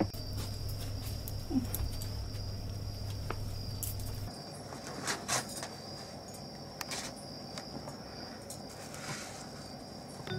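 Crickets chirping in a steady high trill, with a low hum that cuts off about four seconds in and a few light knocks and rustles in the second half.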